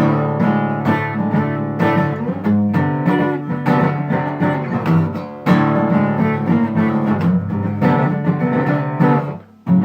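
Guitar music without singing, an instrumental passage of plucked notes and chords; the playing drops out for a moment just before the end.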